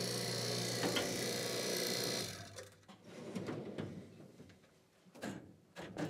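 Vacuum pump of a Neutec J-2R vacuum casting machine running with a steady hum and hiss, switched off about two seconds in and running down to a stop. A few light knocks and clicks follow.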